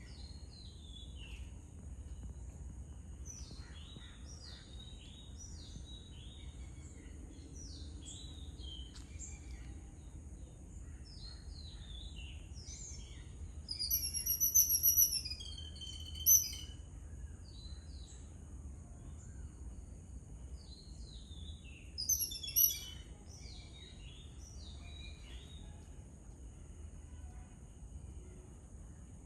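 Small birds chirping and calling in quick short descending notes, with two louder bursts of high, rapid calls: one about halfway through and a shorter one about three-quarters of the way in.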